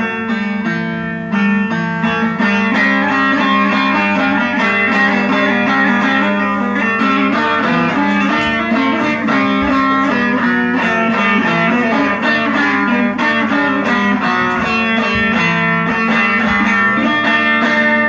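Instrumental break of a Turkmen song: a fast plucked-string melody of quick, busy notes, with no singing.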